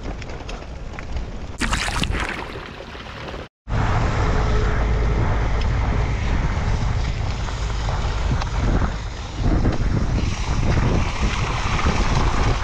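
Wind buffeting the handlebar-mounted action camera's microphone as a folding bicycle rides along a muddy track, a loud steady rumble. It is cut off briefly about three and a half seconds in.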